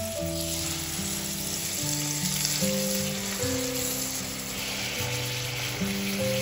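Raw chicken breasts sizzling as they fry in butter and oil in a frying pan, a dense steady hiss that grows a little stronger about halfway through. Background music of slow held notes plays under it.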